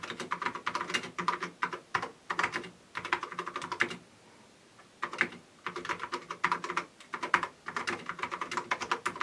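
Fast typing on a TRS-80 Model 4's reassembled keyboard: quick runs of key clicks, stopping for about a second near the middle before the typing resumes.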